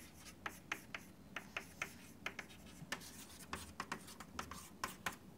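Chalk writing on a chalkboard: a quick, irregular run of short taps and scratches as words are written out.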